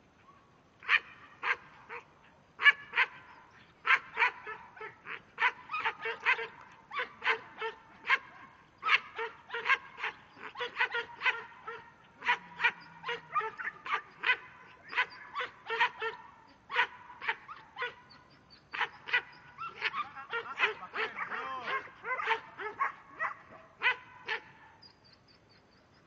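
Herding dog barking at livestock in a long, rapid run of short, sharp barks, about two or three a second. The barking starts about a second in and stops shortly before the end.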